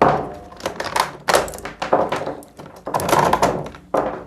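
Handling noise: a series of knocks and plastic rustles, about four in all, as a rotary engraver is lifted out of its plastic carrying case.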